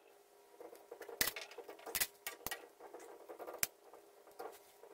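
Manual caulking gun squeezing out a bead of silicone sealant: a string of irregular light clicks from the trigger and plunger rod as it is pumped.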